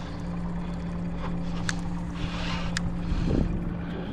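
Boat motor idling with a steady low hum, over wind and water noise. Two short clicks come about two and three seconds in.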